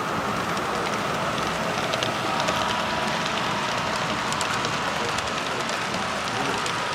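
HO scale model trains running on layout track: a steady rolling rumble with many light, irregular clicks.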